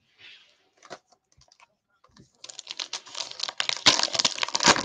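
Foil wrapper of a basketball trading-card pack being torn open by hand, a dense crinkling crackle that starts about two and a half seconds in and grows louder toward the end, after a few faint handling clicks.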